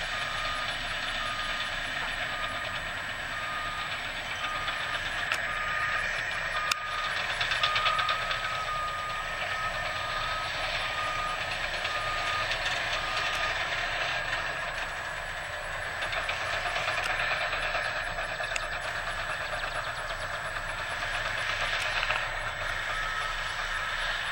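Backup alarm on heavy construction machinery beeping about once a second over a running engine, meaning the machine is reversing. The beeping stops about halfway through and returns briefly near the end.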